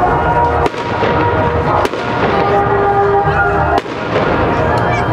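Aerial firework shells bursting overhead: three sharp bangs a second or two apart. Under them runs a steady background of voices and music.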